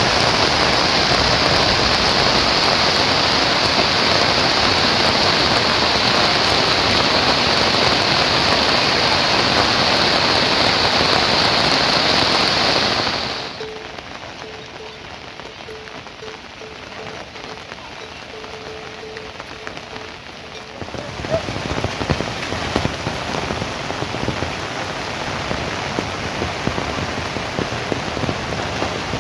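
Rain falling, a dense, loud hiss. About 13 seconds in it drops to a softer patter with a faint, faltering tone. From about 21 seconds it grows louder again, with individual drops ticking.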